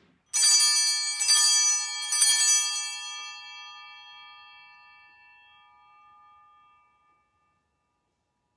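Altar bells rung three times, about a second apart, each ring a bright cluster of high tones, the sound fading away over the next few seconds. They mark the elevation of the chalice just after its consecration at Mass.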